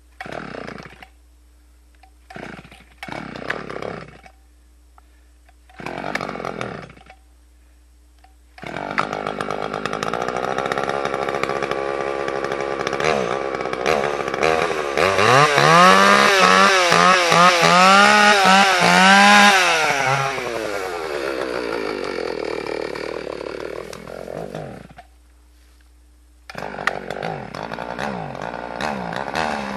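Husqvarna 61 two-stroke chainsaw being started: it fires briefly three times and dies, then catches about nine seconds in and runs, revved up and down several times before settling lower. It cuts out, then starts again and revs near the end; the owner puts its rough running down to old fuel that has to be run out of it.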